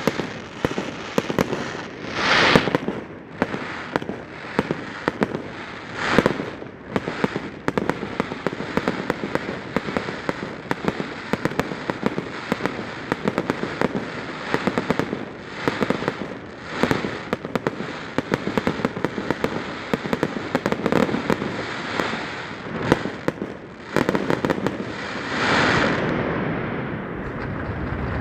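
Fireworks display: a dense, continuous crackle of small shells, with several louder bangs spaced a few seconds apart. A steady rushing noise rises near the end.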